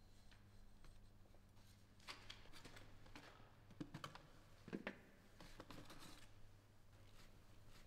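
Faint clinks and scrapes of a metal ladle against a foil tray as food is scooped and served, a scatter of light taps between about two and six seconds in.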